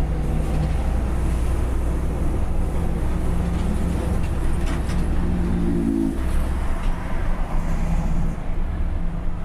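Engine running through a straight-through exhaust with no muffler, giving a loud, steady low drone. The pitch climbs for a moment about five seconds in, then the deepest part of the drone eases off just after six seconds.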